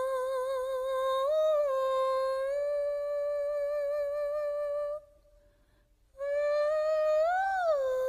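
Background music: a wordless voice humming long held notes with a slight waver. It rises briefly in pitch about a second in and again near the end, with a short break about five seconds in.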